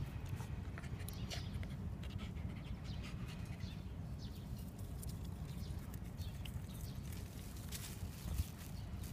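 Shiba Inu sniffing at weeds: short, scattered snuffs over a steady low rumble.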